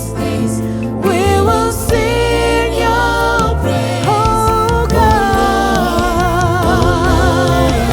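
Gospel song: a singing voice holding long wavering notes over a steady bass accompaniment.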